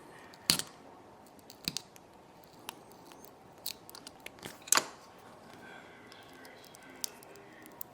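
Small sharp clicks and taps of tiny tools and parts being handled while working on an iPod nano, scattered and irregular, with two louder clicks about half a second in and near five seconds.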